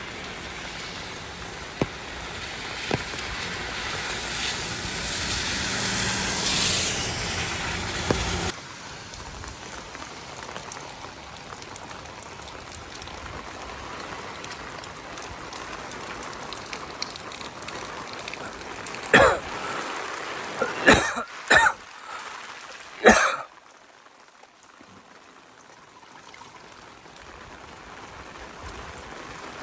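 Steady hiss of heavy rain. A louder swell over the first several seconds cuts off suddenly. About twenty seconds in come four short, loud bursts within a few seconds.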